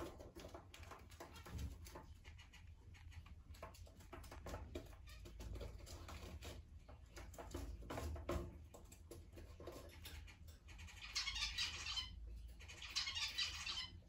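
A cockatiel pecking and nibbling at pumpkin in a dish: a stream of small beak clicks and pecks. Two louder stretches of fast crackling come near the end.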